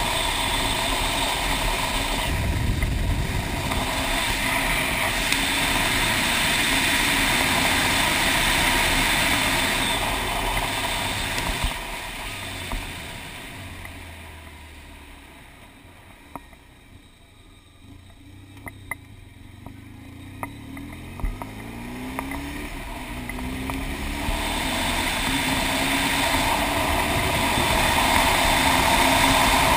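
Motorcycle wind and road rush at speed that dies away about twelve seconds in as the bike slows. The engine's low note is then heard, rising in pitch through several gear changes as the bike pulls away, with a few sharp clicks. The wind rush builds again toward the end.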